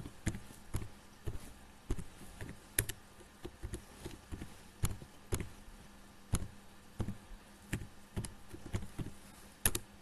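Typing on a computer keyboard: separate keystrokes clicking at an uneven, unhurried pace, about one or two a second.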